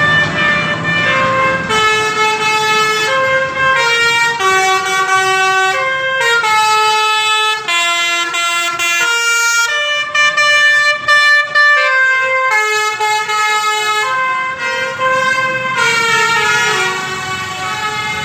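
Telolet 'Basuri' musical air horn on a coach playing a tune of held notes that step from pitch to pitch every half second to a second.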